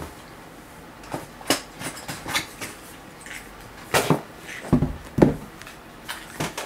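An advent calendar box being handled and opened, giving a string of irregular clicks and knocks, the loudest about five seconds in.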